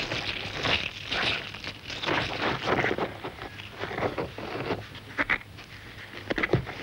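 Irregular crackling and scratching of soil and grit as a dung beetle pushes its dung ball over the ground, with a few louder snaps near the end.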